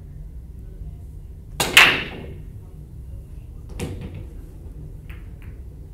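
Pool break shot: about one and a half seconds in, the cue tip strikes the cue ball and a split second later the cue ball smashes into the racked balls, a loud burst of clacking balls. The scattered balls knock together a few more times after it.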